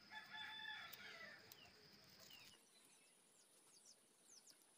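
A rooster crowing faintly once, for about a second and a half, then near silence with a few faint, short bird chirps.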